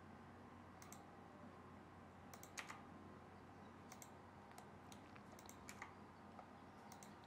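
Faint, scattered clicks of a computer keyboard and mouse, singly and in small clusters, over quiet room hiss.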